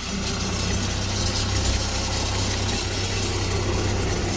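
Forklift engine running steadily with a low hum while it carries a loaded crate on its forks.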